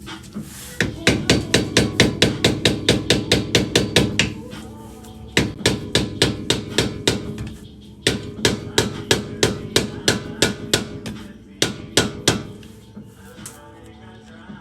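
Rapid hammer blows, about five a second in four runs with short pauses, on a screwdriver used as a punch against a seized nut to force it round.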